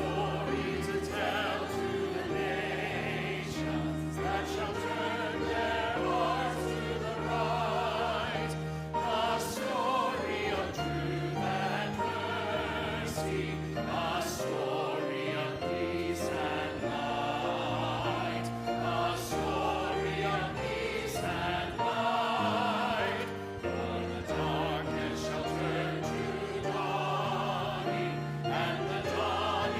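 Church choir singing with vibrato over sustained low instrumental accompaniment.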